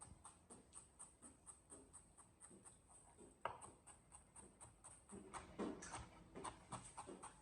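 Knife chopping coriander on a cutting board: faint, quick, even strokes about four or five a second, with one sharper knock about halfway through.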